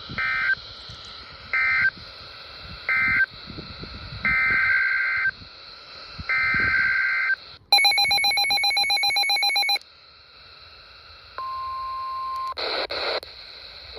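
Emergency Alert System tones over a hissy broadcast feed: three short warbling data bursts about a second apart, then two longer ones, followed by about two seconds of a harsh buzzing alert tone and then a steady single beep lasting about a second.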